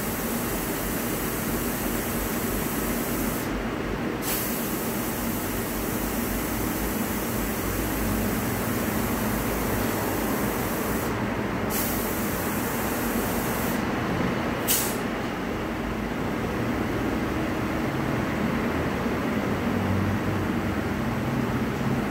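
Steady hiss and rumble of compressed air and machinery at a tyre changer. The high hiss cuts out briefly three times, each time coming back with a sharp burst of air.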